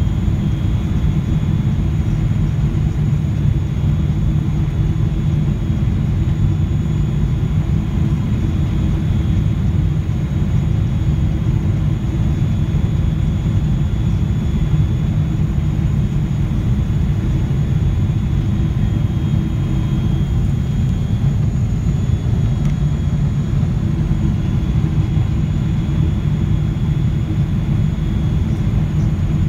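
Steady low rumble inside a jet airliner's cabin during descent: engine and airflow noise heard from a window seat beside the engine, with a few faint, high, steady whines above it.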